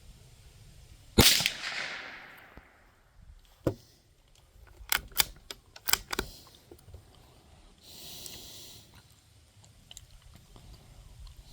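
A single shot from a Savage Mark II FV-SR bolt-action .22 LR rifle about a second in, with a ringing echo that dies away over about a second and a half. This is followed by a click, then a quick series of sharp metallic clicks and a short scrape as the bolt is worked to eject the case and chamber the next round.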